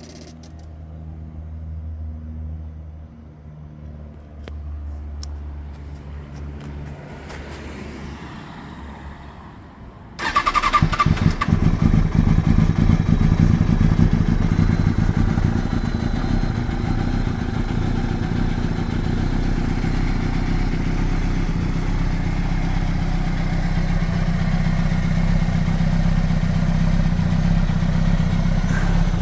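Kawasaki Ninja ZX-6R 636's inline-four engine on a cold start: a quiet low hum with a few clicks, then about ten seconds in the engine fires with a brief rev and settles into a steady fast idle.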